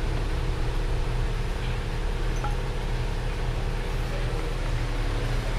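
Steady low mechanical hum over an even background hiss, with a couple of faint light ticks.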